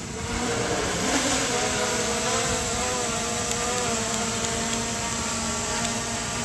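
SJRC F11 quadcopter's brushless motors and propellers buzzing as it hovers and descends close by, the pitch wavering up and down as the motors change speed. It gets louder about half a second in.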